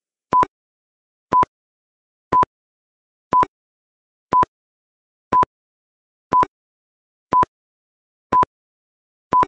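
Countdown timer sound effect: a short beep about 1 kHz high, one every second, ten in all, with silence between.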